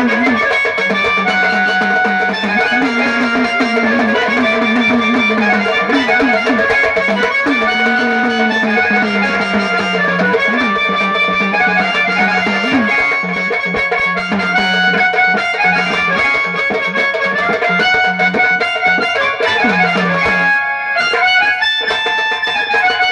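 Instrumental music from a Maharashtrian banjo band: a plucked-string melody over a held low tone, with drums. The music briefly drops out about 21 seconds in.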